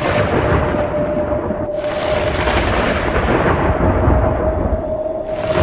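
Thunderstorm sound effect: rolling thunder with a rain-like hiss that swells about two seconds in and again near the end, over a steady single held tone.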